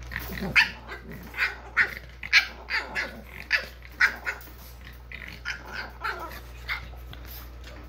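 French bulldog and puppy play-fighting: a run of about a dozen short, high yaps and growls, coming thick and fast for the first four seconds, then thinning out.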